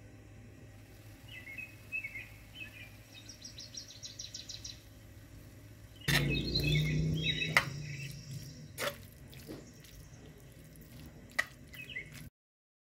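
Cheese-topped farfalle in meat sauce being stirred in the pan with a spoon, starting suddenly about six seconds in: wet squelching with sharp clicks of the spoon against the pan. Before that, only faint chirping in the background. The sound cuts off abruptly near the end.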